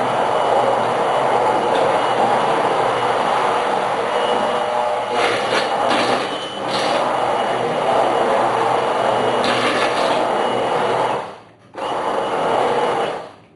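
Electric immersion (stick) blender running in a pot, puréeing thick split pea soup. The motor stops briefly about eleven seconds in, runs again, and cuts off near the end.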